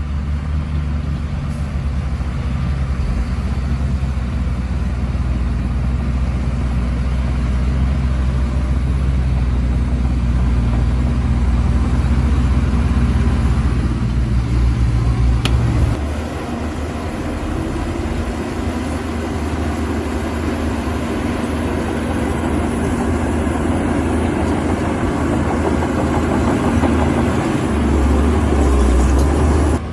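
Shantui bulldozer's diesel engine running with a steady deep hum. About halfway through, the sound changes abruptly: the deep hum drops away and a noisier, higher sound takes over. Near the end a deep hum returns briefly.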